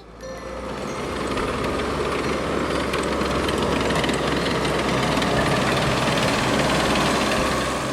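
Tractor engine running steadily, rising over the first second or so and beginning to fade near the end.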